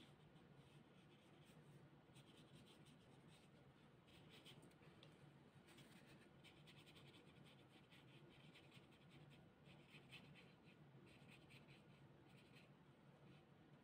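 Near silence: faint room hum with soft, intermittent scratching.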